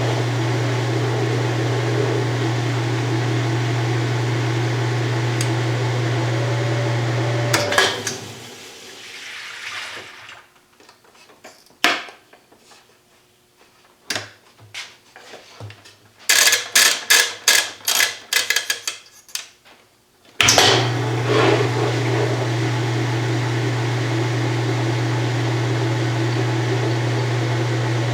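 1993 Kenmore 80 Series top-load washer running empty with a steady motor hum; a few seconds in it shuts off and winds down, then after a quiet spell comes a rapid series of sharp knocks, roughly three a second for about four seconds, and the motor starts again suddenly near the end. The knocking when it stops turned out to be the balance ring not seated properly on the tub.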